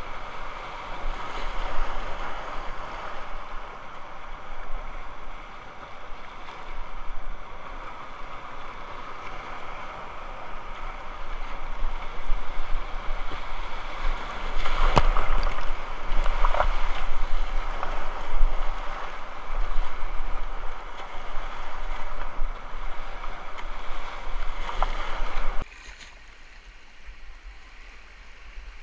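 Whitewater rapids rushing loudly around a kayak on a flooded creek. There are sharp knocks and splashing about halfway through as the boat punches through a big breaking wave. About 26 s in the sound cuts abruptly to a much quieter flow of moving water.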